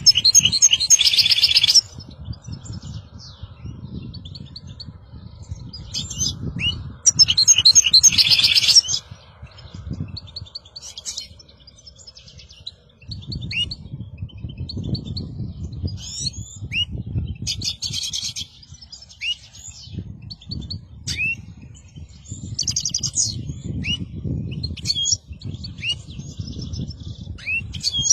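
European goldfinches singing: two loud bursts of rapid twittering song, at the start and about seven seconds in, with short sliding call notes repeated between them. A low rumble runs underneath much of the time.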